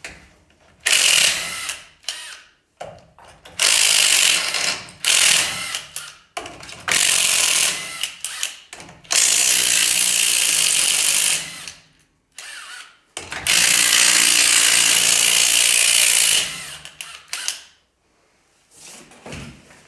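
Cordless impact wrench hammering the lug nuts off a Chevy C10's front wheel. It runs in about six bursts, the longest about three seconds, with short pauses between them as it moves from nut to nut.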